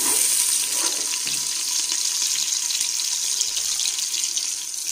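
Sliced onions sizzling in hot ghee in a steel pot, a steady crackling hiss while they are stirred to brown.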